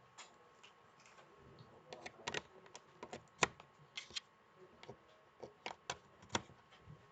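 Irregular sharp clicks and knocks, about fifteen of them at uneven spacing, with the loudest about three and a half seconds in; small objects being handled in a quiet room.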